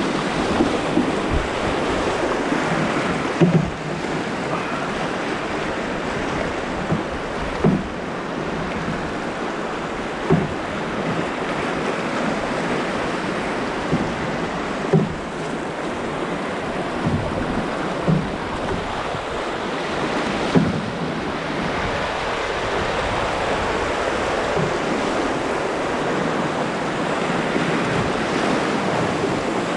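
Whitewater rushing steadily around an open canoe running class II rapids in a brook, with a short dull knock every few seconds.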